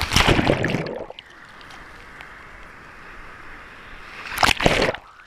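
Sea waves washing over a camera held at water level, with water rushing over the microphone. This happens twice: a loud rush lasting about a second at the start and a shorter one near the end, with a steady hiss of surf between.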